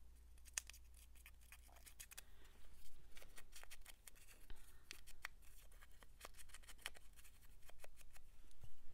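Paper being handled at a craft table: irregular small clicks, taps and rustles of paper pieces, busier in the second half, over a faint steady low hum.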